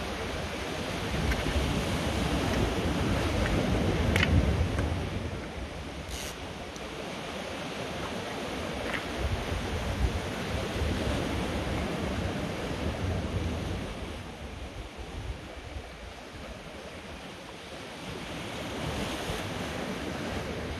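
Sea swell washing over rocks, rising and falling in loudness over several seconds, with wind buffeting the microphone. A few faint clicks a couple of seconds apart.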